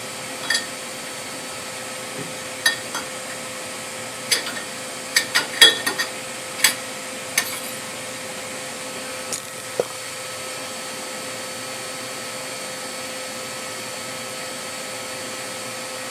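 Metal spindle sleeve being handled and slid into a lathe's spindle bore, giving short light metallic clicks and knocks. Several come in quick succession a few seconds in, and a last one comes near ten seconds. A steady background hum with a few thin whining tones runs underneath.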